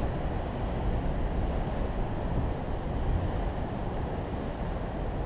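Steady wind noise on the microphone mixed with the wash of sea surf breaking on rocks, an even low rumble with no distinct events.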